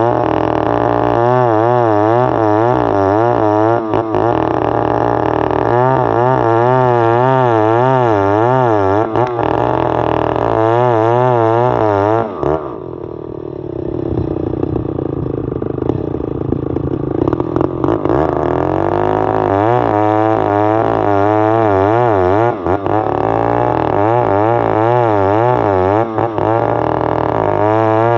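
Stihl 070 two-stroke chainsaw running at high revs while cutting timber into planks, its engine pitch wavering rhythmically as the chain bites. About halfway through the revs drop for a few seconds, then climb back.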